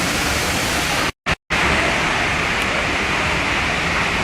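Waterfall rushing: a steady, loud wash of falling water, which cuts out completely for a moment about a second in.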